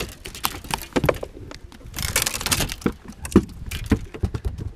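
Irregular clicks, taps and knocks of fishing gear being handled in a boat, with a short rush of noise about two seconds in.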